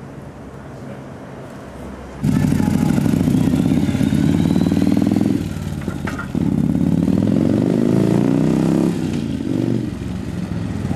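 Touring motorcycle engine running loud as the bike pulls away, starting suddenly about two seconds in. It dips briefly, then climbs in pitch as it accelerates, and eases off near the end.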